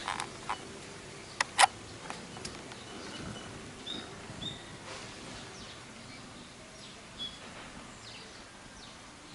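Small birds chirping, short high chirps scattered over a steady outdoor background. In the first two and a half seconds come a few sharp clicks or knocks, the loudest about a second and a half in.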